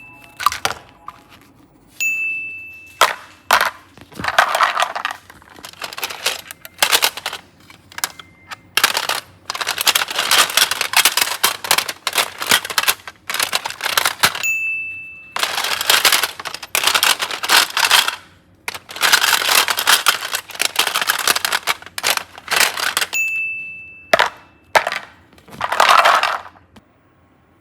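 Slime and clay being worked in long bursts of dense crackling and clicking, broken three times by a short, high, bell-like ding.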